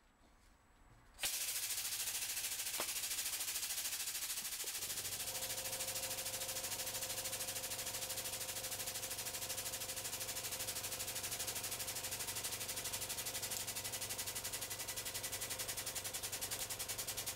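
Hydraulic press pump running with a rapid, even rattle that starts about a second in, as the ram comes down and crushes a plastic mini stapler. A steady hum joins about five seconds in.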